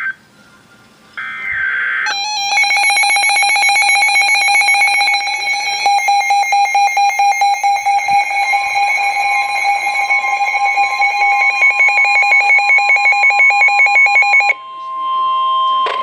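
Emergency Alert System tornado warning alert tones. About a second in comes a short burst of warbling data tones, the coded alert header. From about two and a half seconds a loud, rapidly pulsing electronic alarm sounds; a steady tone comes in under it midway and carries on alone after the alarm stops near the end.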